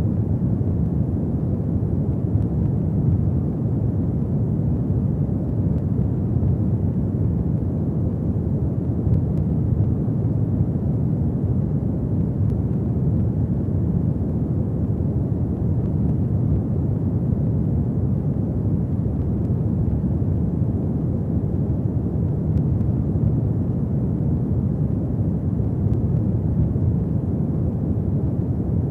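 Fire burning in a fireplace: a steady low rumble with a few faint crackles.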